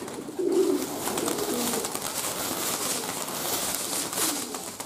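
A flock of young tumbler pigeons flushed off a roof, their wings clattering densely as they take off and climb, starting about half a second in. Some cooing is heard along with it.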